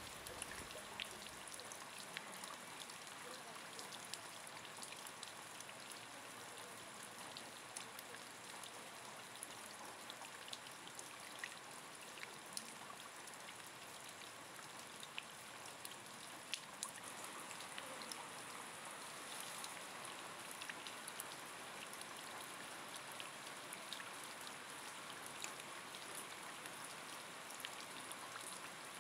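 Heavy rain: a steady faint hiss of downpour with scattered sharp ticks of drops striking a surface.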